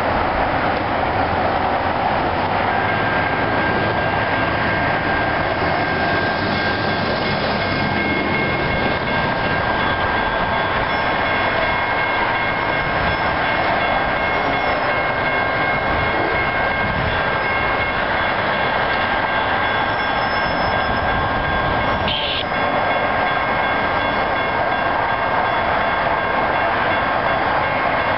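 A train running past close by: a steady rush and rumble of wheels on rail with a faint steady high whine over it, and a single clank about 22 seconds in.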